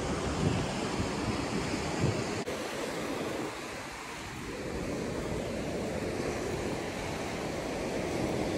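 Ocean surf washing on the shore, with wind buffeting the microphone. The wind rumble is heaviest in the first couple of seconds. A brief click comes about two and a half seconds in, and after it the wash of a wave swells and fades.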